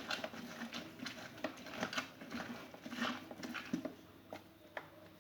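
An orange being squeezed by hand on a manual citrus juicer: irregular small squelches, taps and clicks, quieter near the end.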